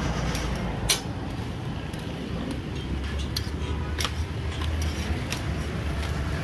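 Metal spatula clinking and scraping on a large flat iron griddle as parathas are lifted and turned. There is a sharp clink about a second in and a few lighter ones later, over a steady low rumble.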